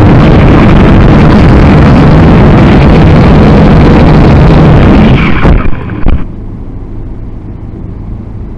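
Syma X5C quadcopter's small brushed motors and propellers whirring loudly, picked up by its own onboard camera microphone. The motors cut out about five and a half seconds in as the battery runs flat, with a couple of knocks as the drone comes down. After that only a much fainter steady hiss remains.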